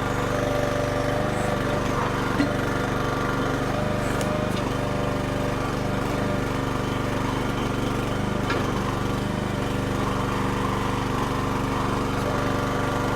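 Small engine of a Red Rock mini backhoe running steadily while the backhoe is worked, with one brief knock about two seconds in.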